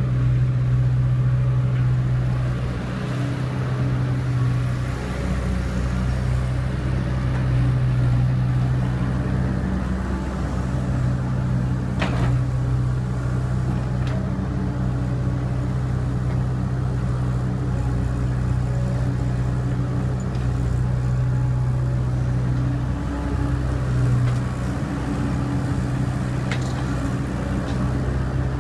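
Diesel engine of a working excavator running steadily, with a few sharp knocks, the clearest about twelve seconds in.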